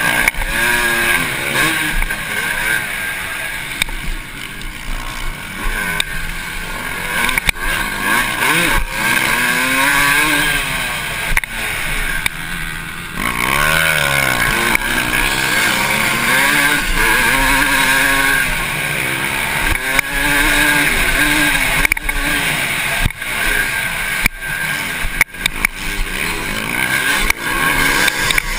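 Dirt bike engine heard from on board, revving up and down over and over as the rider works the throttle and gears around a motocross track. About 13 seconds in, the revs drop sharply and then climb again.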